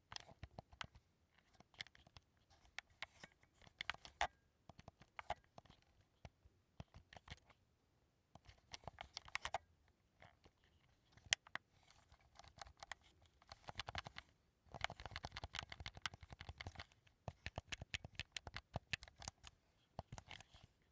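Sony PS5 DualSense controller being handled up close: irregular flurries of small plastic clicks and taps from its buttons and triggers, with a denser run of clicking about two-thirds of the way through.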